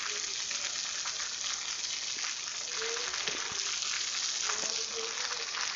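Steady rain falling: an even, dense hiss made up of many small drop taps and crackles.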